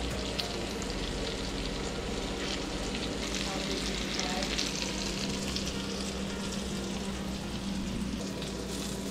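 Breaded coral trout pieces shallow-frying in hot oil in a pan: a steady sizzle with fine crackling, over a steady low hum.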